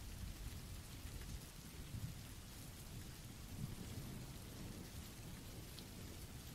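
Faint, steady rain sound effect: an even hiss of rainfall with a low rumble underneath.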